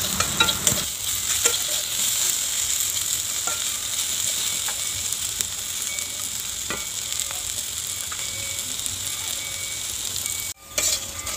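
Thin slices of jackfruit seed deep-frying in hot mustard oil in a kadai: a steady sizzle, with a few light clicks and scrapes from the spatula stirring them. The sizzle drops out briefly about a second before the end.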